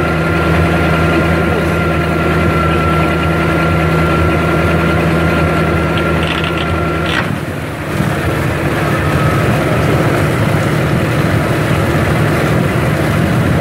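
5.7L MerCruiser V8 inboard engine running steady, with its sterndrive propeller spinning in a water test tank. About seven seconds in there is a click and a brief dip, then the engine speeds up and the propeller churns the water much harder.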